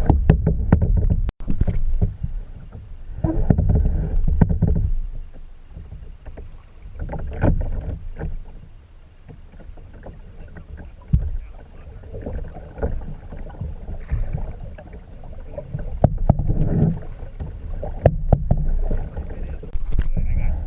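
Kayaking on the water: water and paddling noise rising and falling in uneven surges every few seconds, with scattered sharp clicks and a low rumble.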